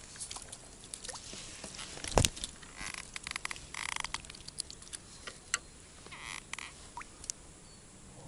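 A small dace being landed on a float rod and handled: one sharp knock about two seconds in, then several short splashing, rustling bursts and scattered clicks as the fish comes out of the water and is taken in hand.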